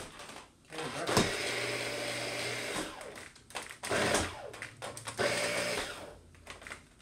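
Shark vacuum cleaner switched on in short bursts, its motor humming and whirring for a second or two at a time, three times, and stopping between. The owner judges the suction motor is no longer working.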